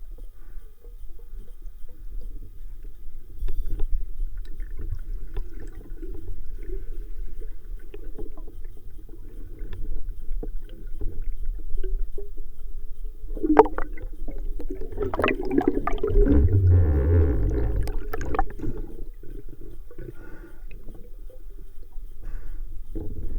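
Muffled underwater sound from a camera in its housing: a steady low water rumble with scattered knocks. About halfway through comes a louder stretch of sharp clicks and heavy rumbling lasting several seconds, then it settles back.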